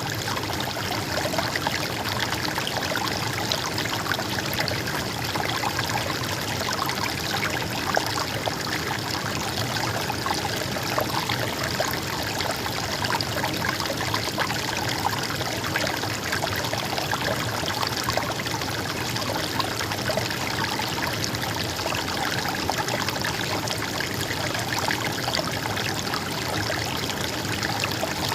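Stream water flowing steadily, a continuous babbling and trickling.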